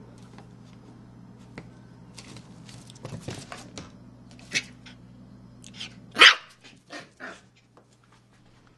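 Bichon Frise puppy barking in about five short, sharp barks, the loudest about six seconds in, after a few seconds of light scuffling and knocks.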